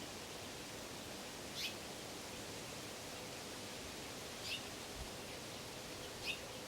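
Three short, high chirps from a small bird, a couple of seconds apart, over a steady hiss.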